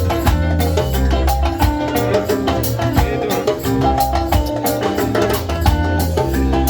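Upbeat music with a steady percussive beat, a bass line and bright plucked or mallet-like melody notes.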